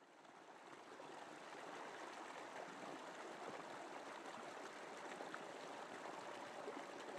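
Shallow river running over gravel and stones: a faint, steady rush of flowing water that fades in over the first second or two.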